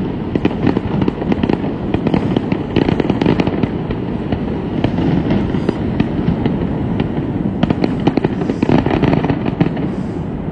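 Fireworks display: a rapid, dense barrage of overlapping bangs and crackles with a constant rumble beneath, easing off near the end as the show finishes.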